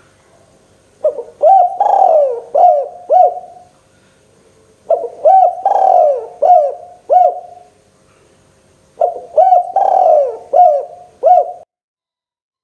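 Spotted dove (tekukur) cooing loudly: three repeated coo phrases about four seconds apart, each a quick run of five or six short rising-and-falling notes.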